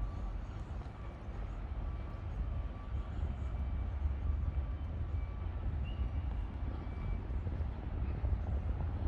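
City park ambience: a steady low rumble of distant engine noise, with faint background tones and a brief high chirp about six seconds in.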